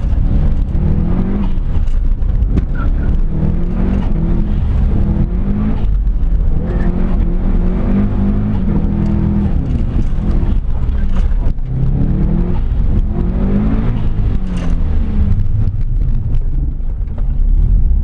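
Subaru WRX's flat-four engine heard from inside the cabin, revving up and dropping back again and again in short surges as the car is driven around a skidpan.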